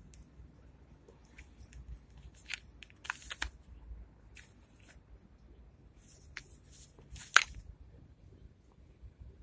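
Handling noise: a string of short rustles and clicks from clothing and the knife being handled, bunched between about two and seven seconds in. The loudest is a single sharp click near the end.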